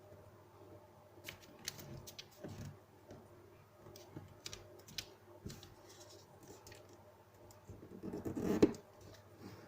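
A square sheet of paper being folded and creased by hand: scattered short crackles and taps, with a louder rustle near the end.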